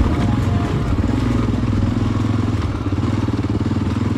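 Honda NX650 Dominator's single-cylinder four-stroke engine running steadily under load while the bike rides a rocky dirt track.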